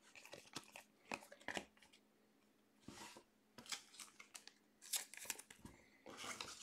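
Faint, scattered clicks and rustles of trading cards being handled and set down on a table.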